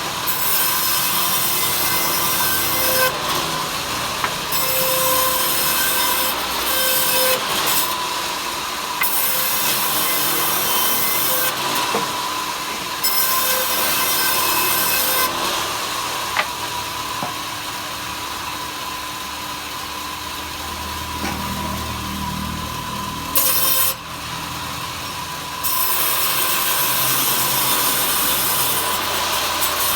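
Power saw cutting wood into thin slats: a loud, steady noise with a steady whine running under it, changing abruptly several times.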